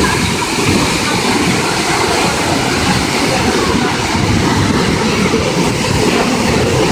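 Waterfall pouring close by: a loud, steady rush of water.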